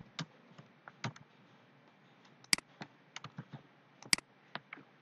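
Irregular clicks from a computer keyboard and mouse, a few soft keystrokes and two sharper clicks about two and a half and four seconds in.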